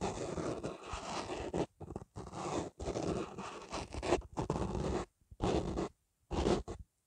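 Fingertips rubbing and scratching the foam windscreen of a lavalier microphone, right on the mic, giving scratchy rustling strokes. They run almost continuously at first, then become separate short strokes with brief pauses in the second half.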